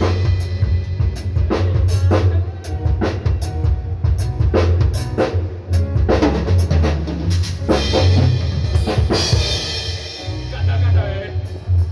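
Drum kit played with bass drum and snare hits, over a continuous deep bass and some sustained instrument tones, as in a band's sound check.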